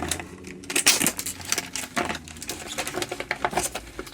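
Tools and a fabric tool bag being handled and packed: irregular small clicks, taps and rustles.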